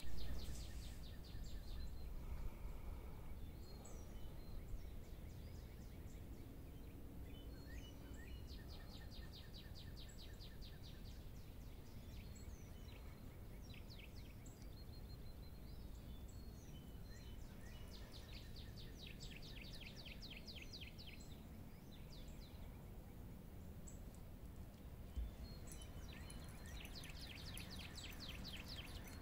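Songbirds singing at dawn: a high, rapid trill of evenly repeated notes lasting a second or two comes three times, with scattered short chirps from other birds in between. A low wind rumble on the microphone sits underneath, and a single faint knock comes near the end.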